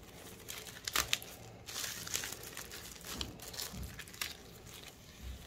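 Clear cellophane bag crinkling and crackling irregularly as gloved hands gather its neck and pull the ribbon tight, with a sharp crackle about a second in.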